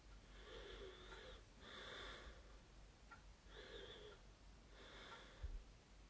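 Near silence: a man's faint breathing, in and out about four times, with a soft low bump a little before the end.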